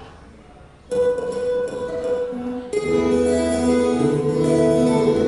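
Two acoustic guitars starting an instrumental duet: the first guitar comes in suddenly about a second in, and the second guitar joins with lower notes near the three-second mark, the two then playing together.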